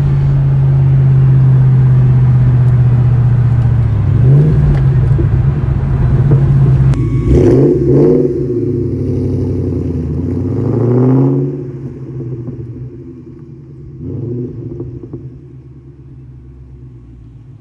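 Supercharged 4.6-litre V8 of a 2004 Mustang SVT Cobra with a JLT cold air intake, running with a deep note while the car is driven. A steady drone gives way to the revs rising and falling about four, seven to eight and ten to eleven seconds in. The sound then drops away to a much quieter run, with one brief swell near the end.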